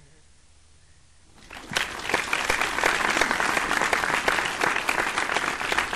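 Applause sound effect: many hands clapping, starting about a second and a half in after near silence and keeping up steadily.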